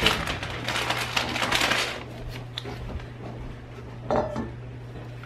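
Plastic bags rustling and crinkling for about two seconds as meal-kit ingredients are pulled out, then quieter handling with a few light knocks and clinks of kitchenware.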